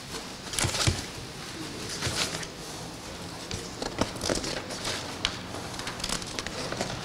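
Paper rustling and crackling, with a few light knocks on a wooden table: sheets and slips of paper being handled and turned. The rustles come in short scattered bursts, the louder ones about a second in, about two seconds in, and around four seconds in.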